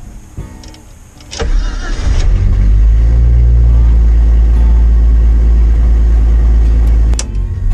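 Jeep Cherokee engine cranked on test after its ignition switches were rewired. It cranks briefly about a second and a half in, catches and runs steadily, and the level drops sharply near the end.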